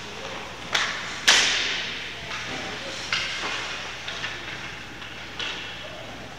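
A series of about seven sharp knocks and impacts, irregularly spaced, the loudest a little over a second in, each trailing off with a reverberant ring as in a large hall.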